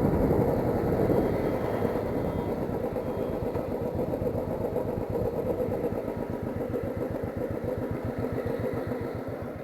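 Royal Enfield Classic 350's single-cylinder engine settling into a steady idle, an even thump of roughly eight to ten beats a second that grows gently quieter.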